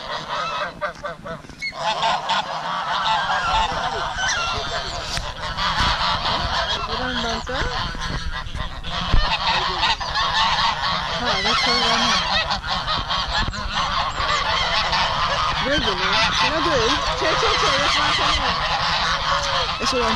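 A flock of domestic geese honking in many overlapping calls as they crowd in to be fed, a continuous din that thickens about two seconds in.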